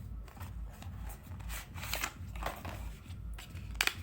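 Packaging of a small accessory being handled and opened by hand: scattered rustles and light clicks, with a sharp pair of clicks near the end, over a low pulsing hum.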